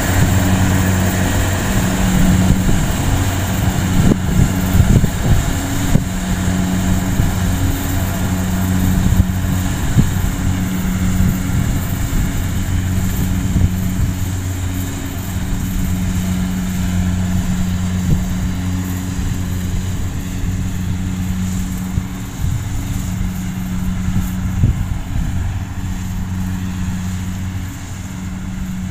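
Kubota DC70G rice combine harvester's diesel engine running steadily while it cuts rice, a constant low drone that grows a little fainter near the end as the machine pulls away.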